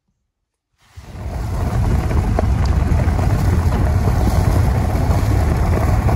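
A vehicle on the move, a steady low rumble mixed with wind buffeting the microphone. It fades in about a second in, after a moment of dead silence.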